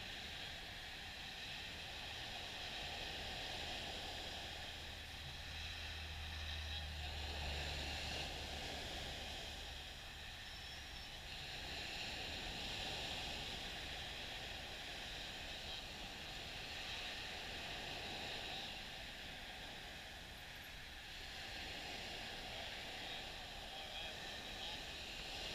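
Gentle waves washing up on a sandy beach, the surf's hiss swelling and easing every few seconds. A low hum comes in a couple of seconds in and fades out by about ten seconds.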